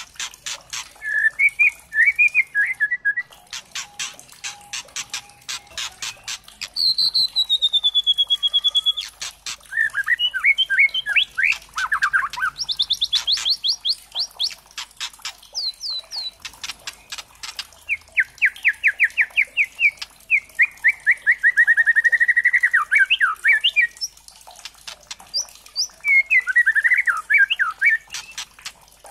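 White-rumped shama (juvenile 'trotol' murai batu) singing: runs of sharp, rapid clicks alternate with whistled phrases, a falling whistle and fast trills.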